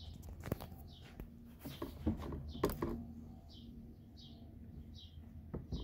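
Scattered light knocks and clicks as a steel bar is handled and laid along the seam of a plastic car door panel, ready for clamping. A bird chirps repeatedly in the background, short high chirps coming regularly in the second half.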